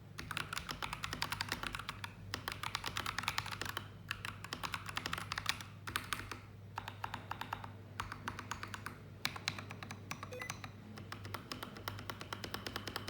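Fast typing on an AKKO 3098B mechanical keyboard with AKKO CS Lavender Purple switches: runs of quick keystroke clacks broken by brief pauses every few seconds.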